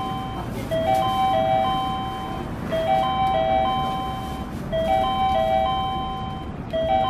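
Station platform train-approach chime: a short electronic melody of a few notes repeating about every two seconds, sounding while a train draws in.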